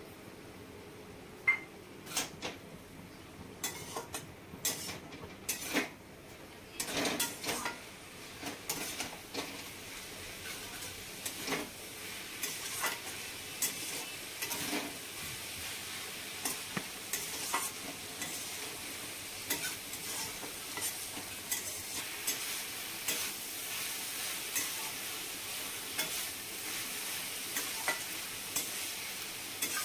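Slotted metal spatula scraping and stirring shredded cabbage and potatoes around a metal kadai, in irregular strokes. Frying sizzle comes up and holds steady after about ten seconds.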